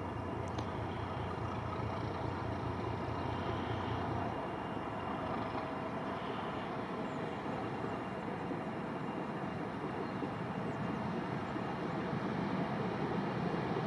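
Distant T478.1 diesel locomotive approaching with its train: a steady low engine rumble mixed with outdoor background noise, growing a little louder over the last few seconds.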